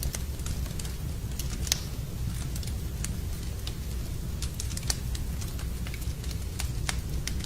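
Wood fire burning in a fireplace: irregular sharp crackles and pops over a steady low rumble, with a couple of louder pops about two and five seconds in.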